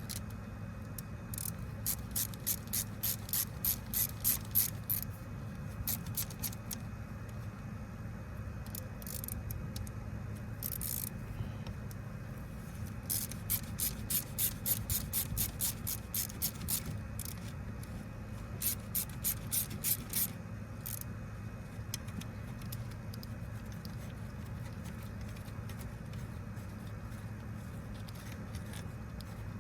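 Socket ratchet clicking in several runs of about four clicks a second as the 8 mm housing bolts of an alternator are loosened, over a steady low hum.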